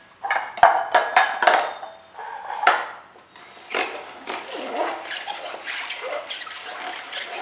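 Hard plastic knocks and clatter from handling the plastic juice tumbler and the hand-crank juicer in the first few seconds, then a steadier rustling, crunching noise as spinach leaves are pushed and worked into the juicer's hopper.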